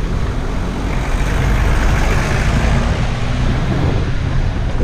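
Pickup truck overtaking close by, its engine and tyre noise swelling to a peak about two seconds in and then easing, over a steady low engine drone.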